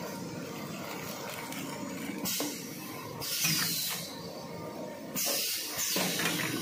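Pneumatic cylinders on a toilet-paper roll bagging machine hissing out air in short bursts, about four times, as the pusher shoves a 30-roll pack into its plastic bag. The machine runs steadily underneath.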